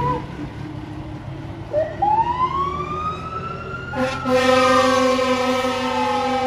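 Pierce fire engine's siren winding up in pitch over about two seconds, then sliding slowly back down. A steady horn blast sounds over it from about four seconds in.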